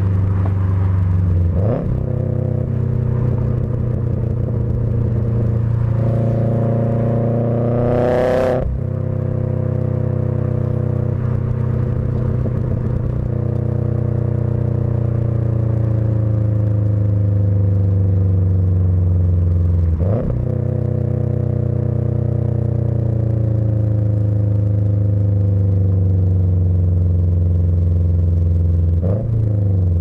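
2006 Subaru WRX's turbocharged flat-four running through an Invidia G200 cat-back exhaust and a catless bellmouth downpipe, picked up by a microphone taped to the bumper while the car is driven through the gears. The exhaust note climbs in pitch as the engine pulls and breaks off at each of about four gear changes, with a short hiss at the change about eight seconds in; through the middle it sinks slowly while the car cruises.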